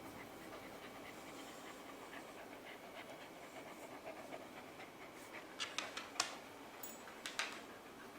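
A dog panting softly, with a few short clicks about five and a half to seven and a half seconds in.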